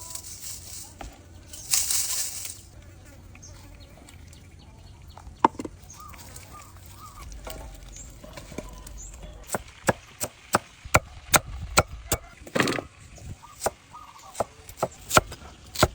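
A cleaver chopping on a wooden board, a run of about a dozen sharp strokes at roughly two a second, starting a little past halfway. Chickens cluck now and then, and there is a short hiss about two seconds in.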